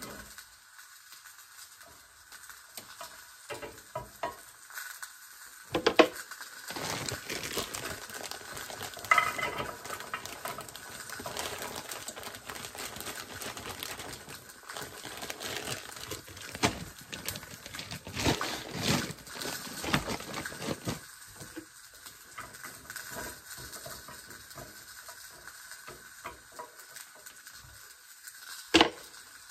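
A plastic spatula scraping and knocking against a glass baking dish, and a plastic bag rustling as baby carrots are poured and tumble into the dish. A steady sizzle of salmon frying in a cast-iron skillet runs underneath.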